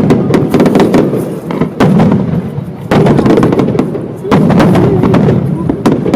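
Aerial fireworks display: loud shells bursting in rapid volleys, dense bangs and crackle, with a fresh salvo every second or so.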